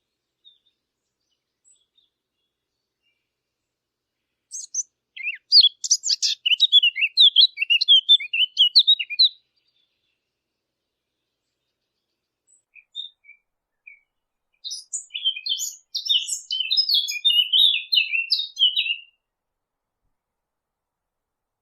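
A Sylvia warbler, the bird sold as the 'fig bird', singing two long phrases of fast, high warbling notes with a pause of several seconds between them. A few soft single notes come just before the second phrase.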